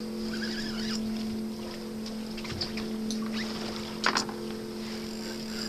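Boat engine running steadily, a low even hum, with faint high scratchy sounds above it. One sharp clack about four seconds in.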